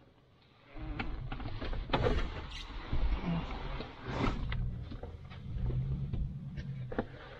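Irregular clicks and knocks with rustling, starting about a second in.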